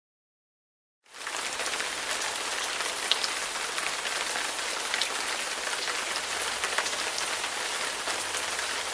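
Steady rain, with scattered drops ticking sharply, starting about a second in.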